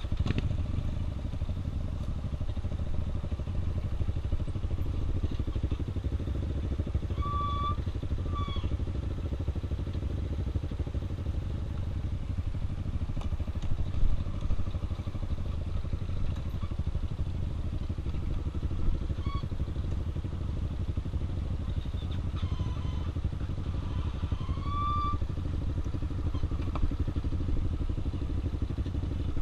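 Trail motorcycle engine running steadily at an even, low throttle, with no hard revving. Two brief groups of short high-pitched chirps or squeaks sound over it, about a third of the way in and again near the end.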